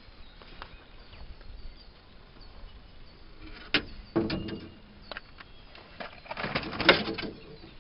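Handling noise from a landing net with a fish in it being worked on a boat: a few sharp clicks and knocks about halfway through, then about a second of rustling and scraping near the end, the loudest part.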